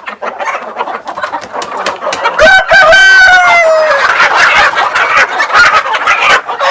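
Village chickens clucking and squawking at close range, with a rooster giving one long crow from about two and a half seconds in, its pitch falling slowly toward the end.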